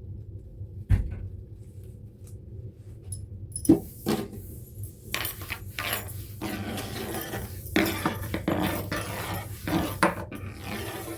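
Things being handled and moved about: a single thump about a second in, then knocks, clinks and rustling from a few seconds in, over a steady low hum.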